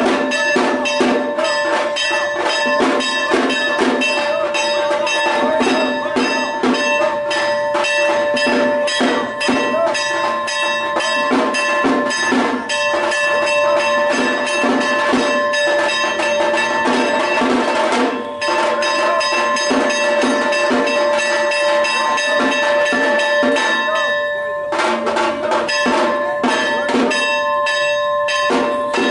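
Temple bells clanging rapidly and continuously with drum beats, the ringing cutting out briefly about eighteen seconds in and again near twenty-five seconds.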